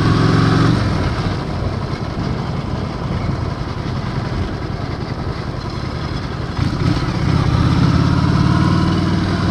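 Honda Shadow 750's V-twin engine running as the motorcycle rides over cobblestone paving. The engine note drops back after about a second, leaving mostly rough road and wind noise, then comes up strong again about seven seconds in.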